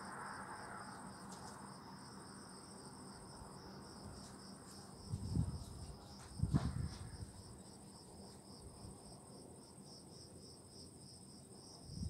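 Crickets chirping in a steady, fast, even pulse, with a fainter high insect trill above them. Two short low rumbles break in about five and six and a half seconds in.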